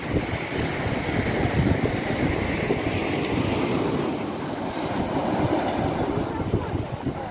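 Sea waves breaking and washing up a pebble beach, with wind buffeting the microphone in a steady low rumble.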